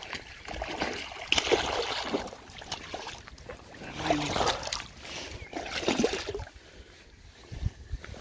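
Hooked pike thrashing and splashing at the surface of shallow water, in three loud bursts of splashing, about one, four and six seconds in.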